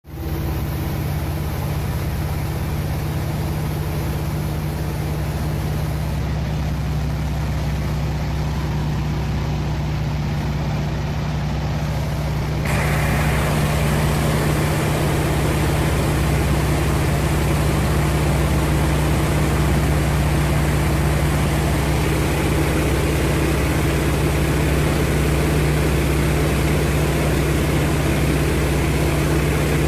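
North American T-28 Trojan's piston engine and propeller running at a steady drone, getting suddenly louder about thirteen seconds in.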